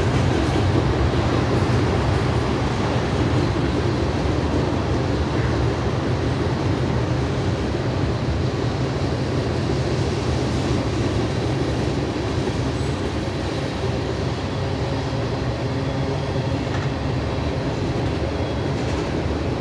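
Freight train cars rolling past at steady speed: a continuous rumble of steel wheels on rail. The train is a mixed manifest of tank cars, hoppers and boxcars.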